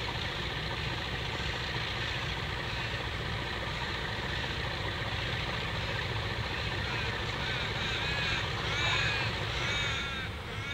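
Diesel locomotives of an approaching train running with a steady low rumble, while a crow caws again and again, the calls loudest and most frequent near the end.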